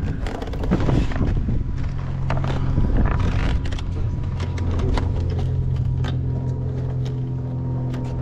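A motor running steadily with a low, even hum, with scattered clicks and knocks over it.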